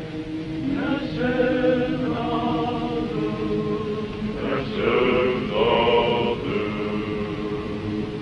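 Slow chanted singing, voices holding long drawn-out notes that move from pitch to pitch, as in a choir.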